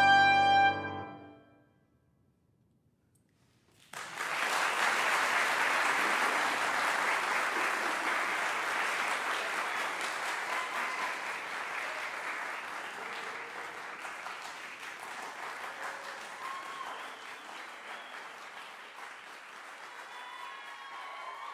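Trumpet and piano holding a final chord that ends about a second in, then a short silence. An audience then breaks into applause that slowly fades, with a few voices calling out near the end.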